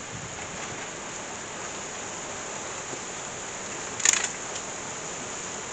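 Heavy rain falling in a steady, even hiss. There is one sharp click about four seconds in.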